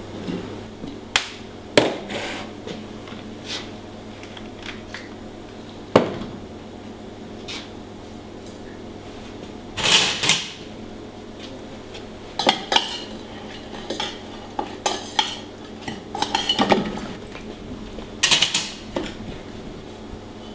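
Irregular clinks and knocks of plates, stainless steel bowls and utensils being handled on a kitchen counter, busiest in the second half, over a steady background hum.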